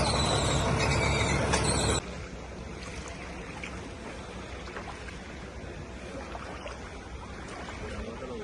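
A loud running engine with high squeals, cut off abruptly about two seconds in. After it comes a quieter, steady rushing of floodwater.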